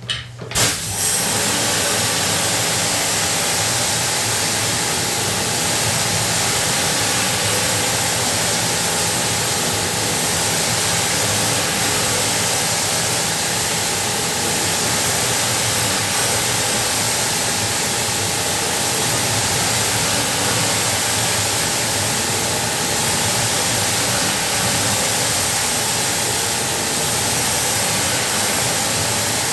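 High-pressure water spray from a cleaning sprayer, a steady loud hiss with the sprayer's motor humming under it. It starts about half a second in and runs on without a break.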